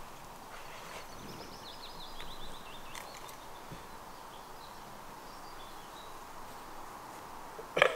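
Quiet outdoor ambience, with a small songbird singing a quick descending trill of notes about a second in. A short, loud sound comes right at the very end.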